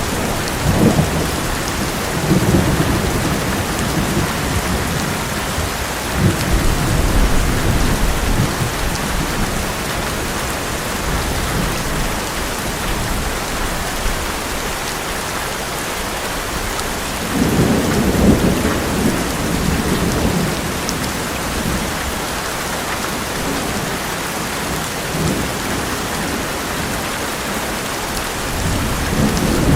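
Heavy rain falling steadily on an old metal roof, with low rolling thunder several times, the strongest a little past halfway.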